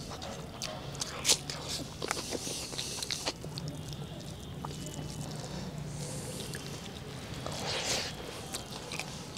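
People eating chicken curry and rice with their hands from steel plates: fingers mixing and scooping the food, chewing, and scattered light clicks and taps.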